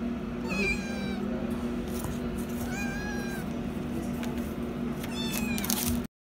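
Cats meowing: three meows about two seconds apart, each falling in pitch, over a steady low hum.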